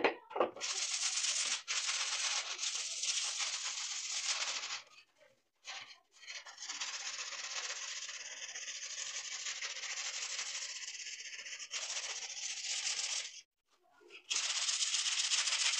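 Rapid, steady scraping of a piece of brick rubbed back and forth over a rusty steel handsaw blade, scouring off the rust. It stops abruptly twice and starts again.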